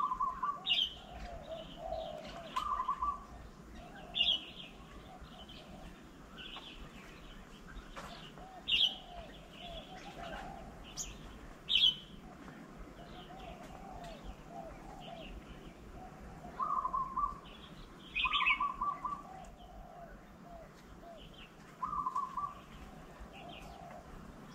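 Several birds calling at once: a steady low warbling chatter with many short high chirps scattered through it, and now and then a short, louder pulsed call.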